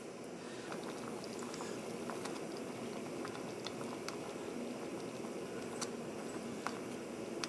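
Thin, soupy egg-and-bean mix boiling in a steel pot on a gas canister stove, a steady bubbling with small pops, as the excess water boils down. A few light clicks come as it is stirred, two slightly sharper ones near the end.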